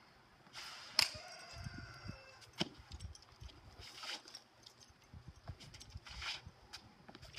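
A spear swung through the air in short swishes, with feet scuffing and stepping on concrete. A sharp crack about a second in is followed by a brief ringing.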